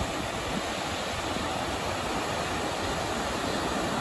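Ocean surf breaking and washing onto the beach close by, a steady rushing noise.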